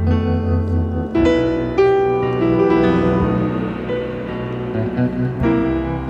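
Instrumental background music led by piano, with fresh notes or chords struck about a second in, again near two seconds, and near the end.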